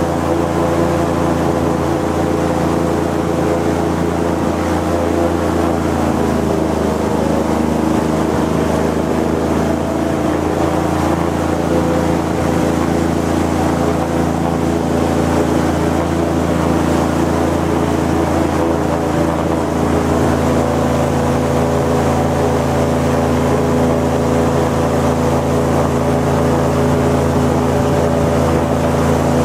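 Airboat's engine and propeller running steadily at cruising speed, a loud, even drone.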